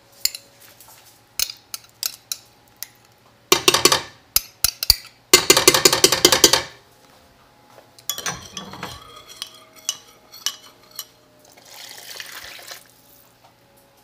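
A metal spoon stirring tomato paste into broth in a glass measuring cup, clinking and scraping against the glass. There are scattered clinks and two loud spells of fast stirring, about three and a half and five and a half seconds in.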